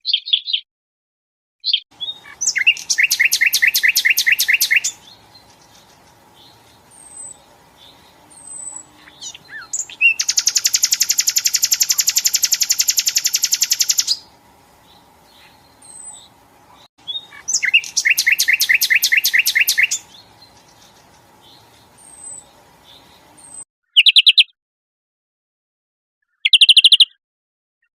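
Recorded cage-bird song from a mix of songbirds: loud, very fast trills lasting a few seconds each, three times, with short chirps and thin high whistled notes between them and a faint steady hum behind. Near the end the track cuts abruptly between short bursts of song.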